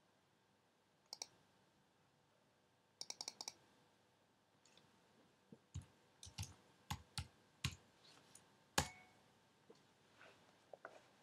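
Faint computer keyboard keystrokes and mouse clicks: a pair of clicks about a second in, a quick run of clicks around three seconds, then about eight spaced keystrokes as a short filename is typed, the last one the loudest.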